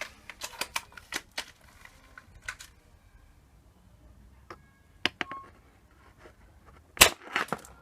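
Spring-powered bolt-action airsoft sniper rifle (WELL MB03, a VSR-10 clone) being worked, with a run of sharp mechanical clicks, a few scattered clicks, then a single sharp shot about seven seconds in followed by a few more clicks. The shot is fired through a chronograph; the rifle's spring and fresh lubrication are still bedding in.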